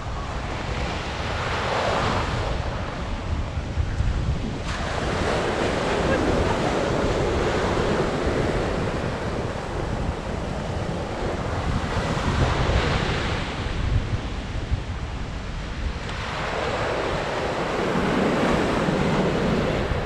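Sea surf breaking on a sandy beach, the wash swelling and fading as successive waves come in, with wind buffeting the microphone.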